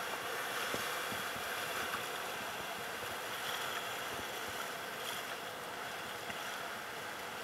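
Whitewater rapids rushing past close by, a steady, even rush of churning river water.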